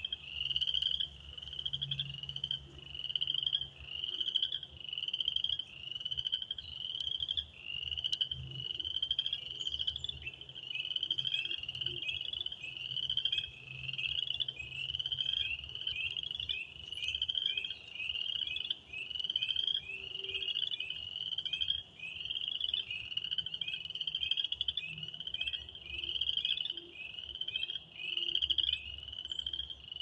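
A chorus of frogs calling from flooded woodland: short, high, rising calls repeated more than once a second without a break, with a fainter second kind of frog call lower in pitch.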